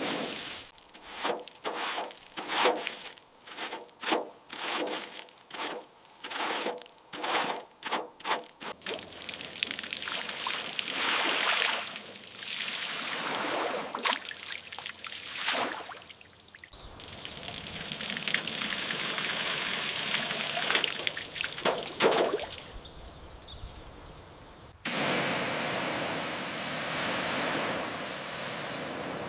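Cleaning sounds in cut-together clips: first a quick run of scraping strokes, two or three a second, then steady rushes of running water, with sudden cuts between clips.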